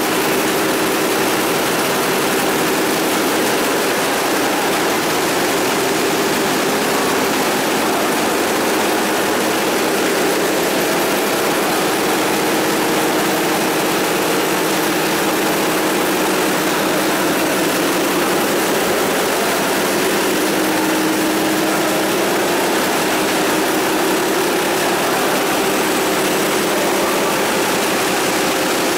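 Food-processing conveyor line running steadily: machinery hum with a wavering low-mid tone over a dense, even hiss.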